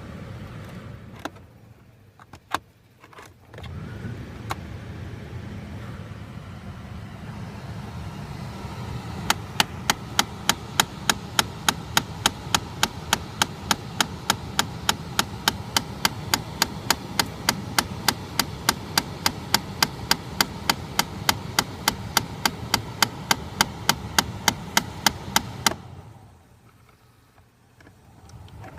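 Rapid, evenly spaced clicking from behind the glovebox of a 2013 Chrysler 200, near the cabin air filter, at about three clicks a second over a low steady hum. A few single clicks come first, and the fast train starts about a third of the way in and stops shortly before the end. It is a fault noise that the owner says happens constantly, even when the car has been sitting parked.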